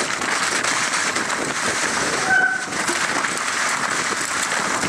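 Moots MootoX YBB 29er mountain bike rolling down a rocky trail through hail slush: a steady rushing rattle of tyres, wet slush and the bike shaking. A brief squeak comes about halfway.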